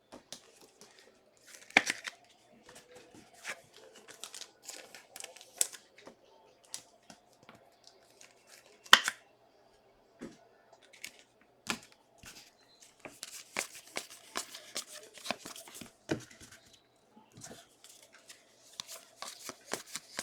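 Packs of 2022 Contenders football cards being torn open, with crinkling wrapper and cards handled: a run of short, irregular rips and crackles.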